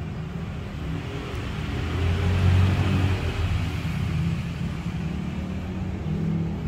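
A motor vehicle engine running, a low steady hum that swells about two seconds in and then eases back a little.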